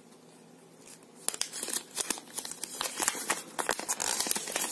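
Folded paper warranty card being unfolded by hand: a dense run of small paper crinkles and crackles starting about a second in.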